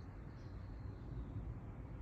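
Outdoor ambience: a low steady rumble with a couple of faint, short, high bird chirps at the start and about half a second in.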